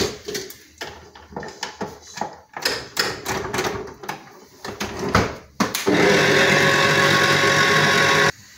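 Clicks and knocks as the steel bowl and whisk of a stand mixer are fitted and locked in place. About six seconds in, the mixer's motor starts and runs steadily at its lowest speed, whisking egg whites and sugar, then cuts off suddenly near the end.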